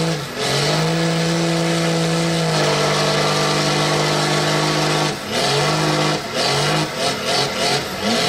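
Mud truck's engine held at high revs as it churns through a mud pit, tires spinning and throwing mud. The engine note stays steady, dips briefly a few times, and rises and falls quickly near the end.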